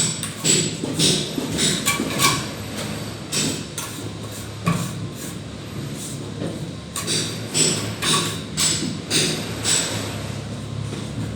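Irregular series of short scraping and knocking strokes of hand-tool work, about one to two a second, sparser in the middle and coming faster near the end.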